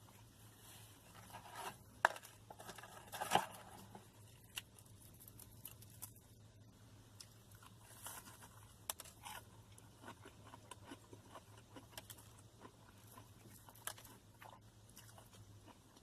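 Close-up eating sounds: scattered small clicks and scrapes of a utensil on a food container, with soft chewing, and two sharper clicks about two and three and a half seconds in.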